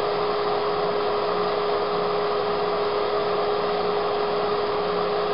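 Steady whirring drone of a small wood lathe spinning a pen blank with the dust-collection suction running, under a constant hum, while the turning blank is hand-sanded.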